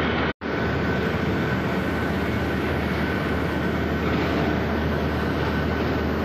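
Steady din of sugar mill machinery: a continuous rumbling clatter with a low hum and a thin, steady whine running through it. It cuts out for an instant just after the start.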